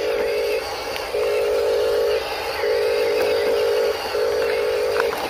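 The electric motor of a Huina 1573 RC dump truck whining in on-off bursts of about a second each, with short gaps between them, four times.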